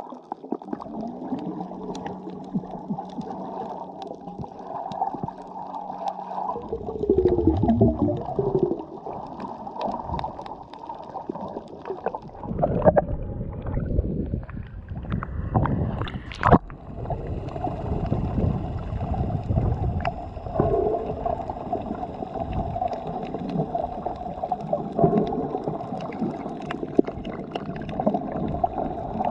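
Muffled water sloshing and gurgling, picked up by an action camera in its waterproof housing while snorkeling. The sound is louder and choppier around the middle, when the camera is at the surface, with one sharp knock shortly after. A steady drone with several high tones runs through the second half.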